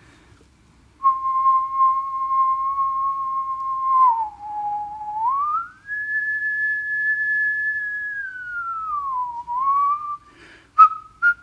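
A person whistling one long pure note, close to a sine wave. It holds steady, dips lower for a moment, glides up to a higher note and holds it, then slides back down. Near the end come a few short notes stepping in pitch.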